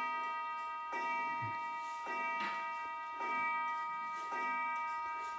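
A steady, bell-like electronic chord of several tones, re-struck about once a second with a slight swell each time.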